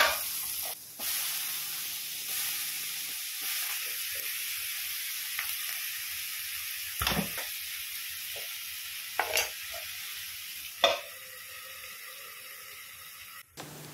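Onion, tomato and brinjal sizzling as they fry in oil in a kadai over a gas flame, with a few short knocks of a utensil against the pan.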